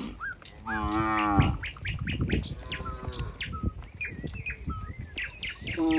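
A cow moos loudly once about a second in, a wavering call, with a fainter moo around three seconds and another starting near the end. Small birds chirp repeatedly in quick short notes through the second half.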